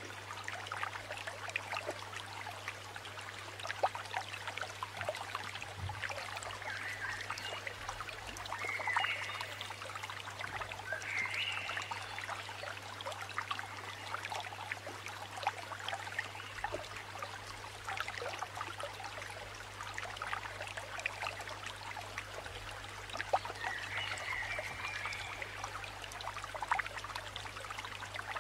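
Aquarium aeration bubbling and trickling in the shop's tanks, a steady crackling water sound over a low steady hum, with a few faint chirps.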